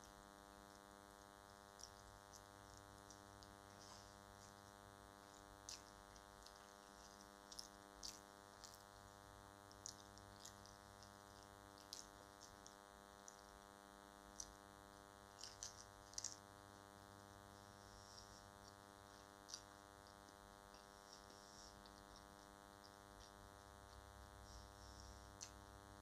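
Very faint eating sounds: short, scattered clicks and smacks of chewing biryani and of fingers working the rice, over a steady electrical hum with many overtones.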